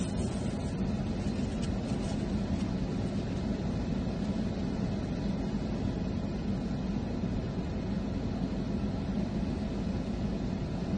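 Steady low drone of an idling car heard inside its cabin, with a hum near the bottom and an even noise over it. A few faint plastic-bag crinkles come in the first couple of seconds.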